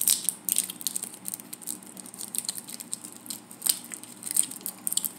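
Crinkling of a small candy wrapper being unwrapped by hand: a run of irregular crackles and rustles, busiest at the start and again near the end.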